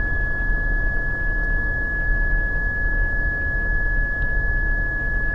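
Rooftop HVAC package unit running, a steady low rumble of its fans and gas-fired humidifier section, with a constant high-pitched whine held at one pitch throughout.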